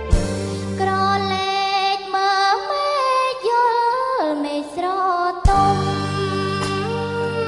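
A woman singing a Khmer song into a microphone over band accompaniment, her voice gliding between held notes with vibrato. The low accompaniment drops out for a few seconds in the middle and comes back with a sharp beat near the end.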